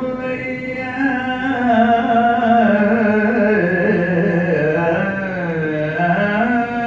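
A single voice sings a slow Carnatic-style melodic line in long held notes. The pitch sinks around the middle and climbs back near the end.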